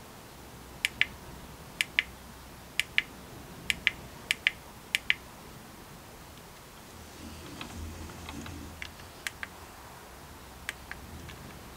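Buttons on a lathe's digital readout display clicking: six presses, each a quick double click of press and release, about a second apart. From about seven seconds a fainter low mechanical rattle with scattered ticks as the lathe slide is moved and the readout counts.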